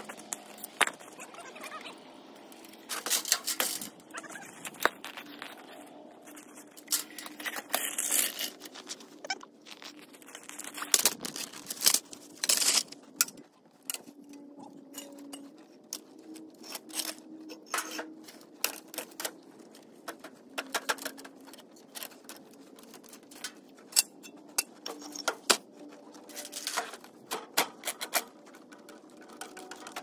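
Irregular clanks, knocks and scrapes of metal gear being handled around a small crawler bulldozer and its steel sled sheet, with a faint steady hum underneath.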